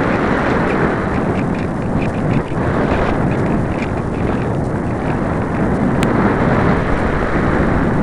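Wind buffeting the microphone of a small camera riding on a light model thermal glider in flight, a loud, steady rush of air noise, with one sharp click about six seconds in.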